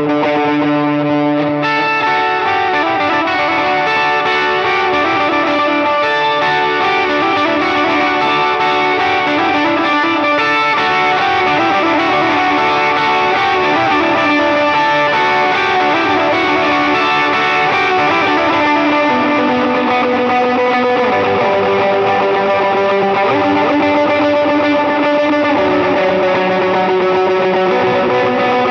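Electric guitar with Filter'Tron pickups playing sustained lead lines through a lightly overdriven dual-amp tone, Deluxe Reverb and AC30 style, with effects.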